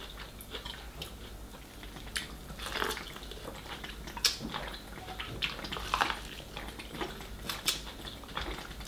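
Mukbang eating sounds of a seafood meal: close-up chewing and biting with irregular wet mouth clicks and smacks.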